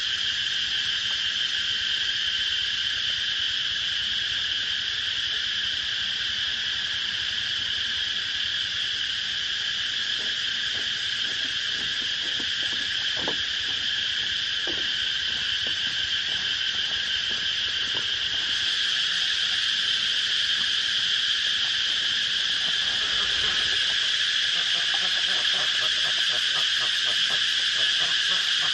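Steady insect chorus, a continuous high drone that does not let up, with a few faint knocks around the middle.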